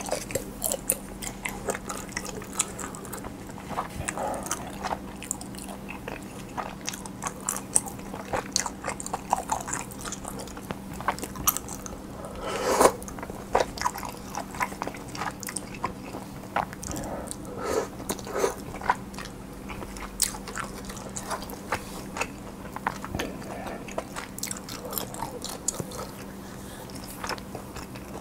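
Close-miked eating: a person biting and chewing, with irregular crunches and wet clicks and one louder bite about halfway through, over a faint steady hum.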